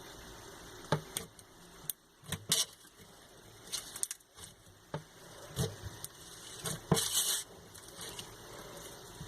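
Hands playing with slime: scattered sticky clicks and pops, with a longer squelching burst about seven seconds in.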